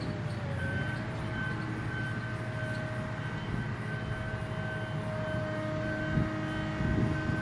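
Heavy diesel equipment running steadily: a low engine rumble with a held whining tone and a higher whine that cuts in and out.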